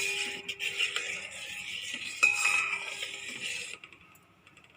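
A metal spoon stirring in a pan of boiling milk kadha, scraping and clinking. It strikes the pan twice, at the start and about two seconds in, each time with a short ring. It stops a second before the end.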